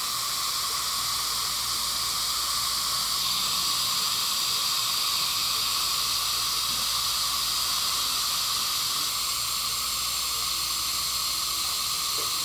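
Dental suction hissing steadily through a thin suction tube hooked to a cheek retractor in the patient's mouth.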